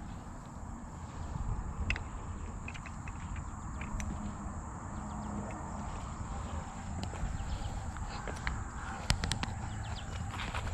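Outdoor riverside ambience: a steady high insect drone over a low rumble, with scattered light clicks and knocks.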